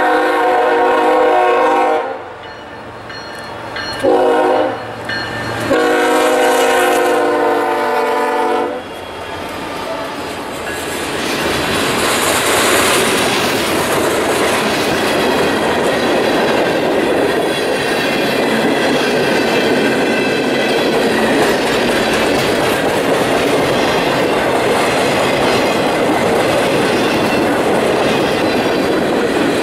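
Freight train's diesel locomotive sounding its horn in three blasts, long, short, then long, the last ending about nine seconds in. The freight cars then roll past close by with a steady rumble of steel wheels on the rails.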